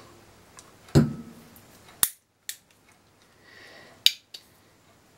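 A dull knock, then four sharp metallic clicks spread over the next few seconds, with a brief soft hiss between them: an Uberti 1851 Colt Navy percussion revolver handled while its hammer is being oiled.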